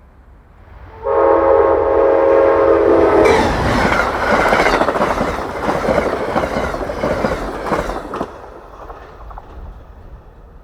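Amtrak passenger train's multi-tone air horn sounding one chord for about two seconds, then the train rushing past at speed with rapid wheel clicks over the rail joints, dying away about eight seconds in.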